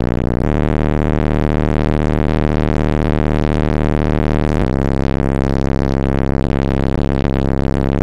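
Two DC Audio Level 6 18-inch subwoofers on about 5,000 watts playing bass-heavy electronic music, heard inside the car's cabin. Held low bass notes shift pitch about half a second in and again near five seconds.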